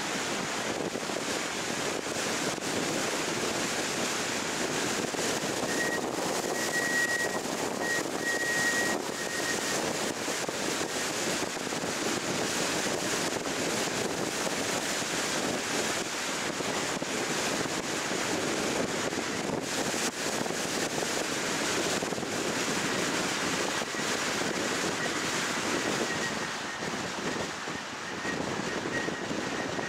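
Steady wind and road noise of a car driving along a road, with a faint high whine that comes in briefly about a quarter of the way in and again near the end.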